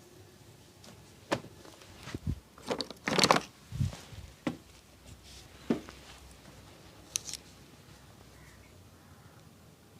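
A barber's hands working over a client's head during a massage: scattered slaps, taps and rubbing, with the loudest flurry about three seconds in and a dull thump just after it, then a few lighter clicks.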